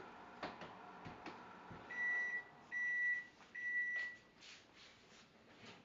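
Microwave oven beeping three times as its 30-second heating cycle ends, each beep a steady high tone about half a second long. Faint clicking comes before the beeps.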